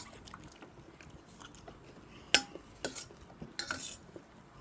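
Metal spoons scraping and clinking against stainless steel plates during fast eating, with a few sharper clinks about two to four seconds in.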